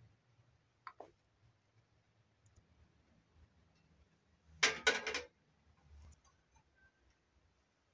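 Aluminium frying pan set down on top of a kerosene heater: a short clatter of three or four quick metal knocks about five seconds in. A faint click about a second in.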